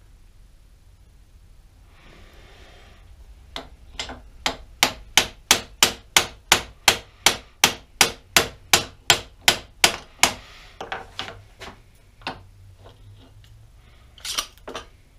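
A small hammer tapping on the cross-slide dial and handwheel of a Pratt & Whitney Model B lathe, seating the parts: a steady run of about twenty sharp metal taps, roughly three a second, then a few scattered taps and a short clatter near the end.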